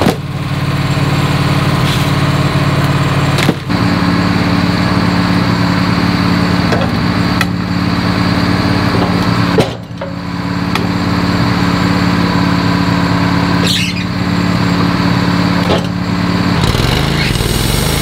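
Wood-Mizer LT15 portable bandsaw mill's small gasoline engine running steadily at a constant speed, with brief dips and clicks about three times. Near the end its pitch shifts and a higher hiss comes in.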